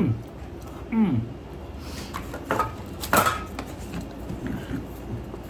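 A few sharp clinks and knocks of metal kitchenware being handled, the loudest about three seconds in.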